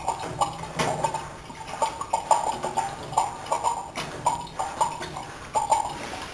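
Homemade putt-putt (pop-pop) boat engine, a flame-heated shoe polish can boiler with a copper tube, sputtering with irregular sharp metallic clicks and pops, a few a second, rather than a steady putt-putt. It is running fitfully, which the builder puts down to the nozzle sucking in air.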